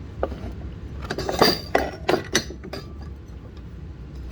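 Old metal hand tools being handled and set down, clinking against each other: a handful of sharp, ringing clinks in the middle of the stretch.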